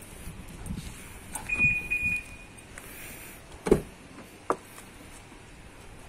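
An aftermarket keyless smart alarm on a Mitsubishi Lancer (Proton Inspira) chirps twice with short high beeps as it unlocks on the driver's approach. A little over a second later comes a loud clunk from the driver's door being opened, then a lighter click.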